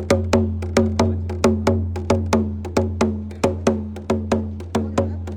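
A drum struck in a quick, steady beat of about four to five sharp strokes a second, each with a short ringing tone, over a steady low hum, played as a sound check.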